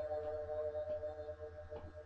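Ambient music: a few held, ringing tones that slowly fade away.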